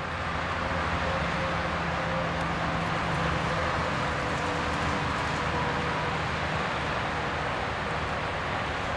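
Steady rushing noise with a faint low hum running under it.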